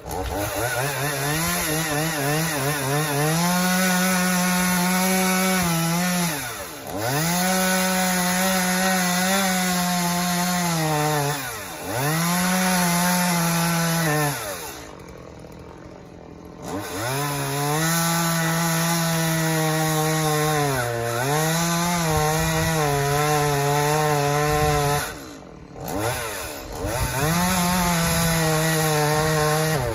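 Chainsaw held at full throttle, its pitch wavering as it cuts, dropping back toward idle and revving up again between cuts several times.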